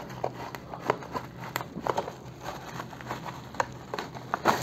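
Cardboard product box being handled and opened by hand: scattered light clicks and taps with faint rustling, the loudest tap near the end.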